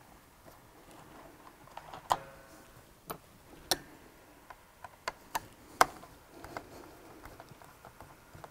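A screwdriver backing screws out of an RS800 CVT transaxle's top cover, giving scattered light clicks and taps of tool on screw and housing, with a short ringing note about two seconds in.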